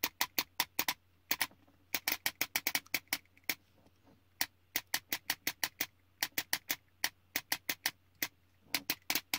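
Airsoft gearbox fitted with a Raven HPA engine clicking sharply as its electronic hair trigger is pressed over and over in testing. The clicks come singly and in quick even runs of about four or five a second.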